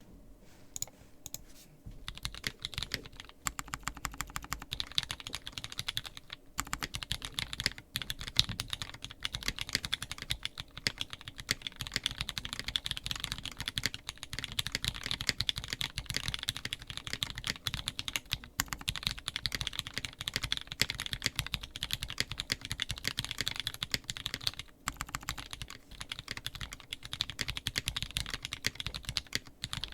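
Fast, continuous typing on a custom mechanical keyboard fitted with Pewter light tactile switches (UHMWPE housing, POM stem), a brass plate and GMK keycaps: a clacky rumble of dense keystrokes. Typing starts about two seconds in and pauses briefly twice, around six and a half and twenty-five seconds.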